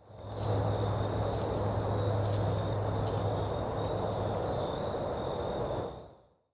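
Night-time insects calling with a steady, high-pitched sound over a steady hiss. The sound fades in at the start and fades out near the end.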